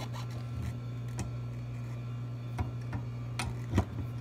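Two adjustable wrenches on a sight glass flare fitting, clicking and tapping metal on metal as the flare nut is tightened: a few scattered sharp clicks, the loudest shortly before the end. A steady low hum runs underneath.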